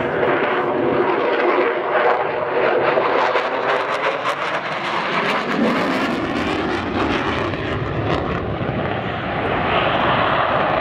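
Fighter jet making a display pass: loud rushing jet noise with tones that fall in pitch as it goes by, turning rough and crackling through the middle.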